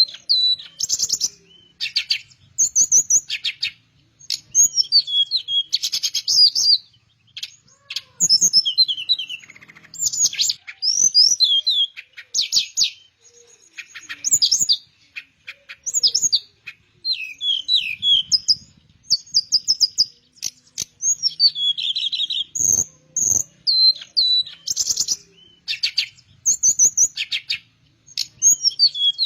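A teledekan (Cyornis blue flycatcher) singing: quick, high, varied phrases of trills and sweeping whistles, repeated over and over with short pauses between them.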